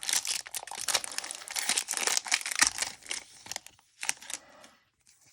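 Foil booster-pack wrapper being torn open and crinkled by hand, with dense crackling for about three seconds, then a few lighter rustles and clicks.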